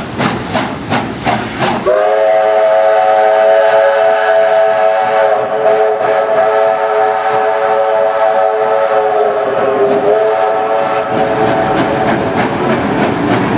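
Steam locomotive pulling away with its exhaust chuffing, about three beats a second. About two seconds in comes a long multi-note steam whistle blast, held steady for around eight seconds before it fades. Faint train noise, including wheel clicks, follows near the end.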